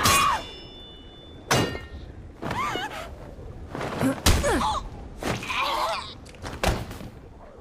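A series of heavy thuds and impacts, the first sharp one about a second and a half in and another loud one past the middle, with short pitched vocal sounds between them.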